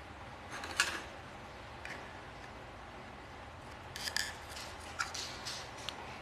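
Metal spoon clinking and scraping against a jar as sambal is scooped out. There is one sharp clink just under a second in, then a run of short taps and scrapes from about four seconds on.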